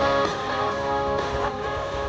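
Music from a local FM radio station playing through the small built-in speakers of an Adveise AV252B radio.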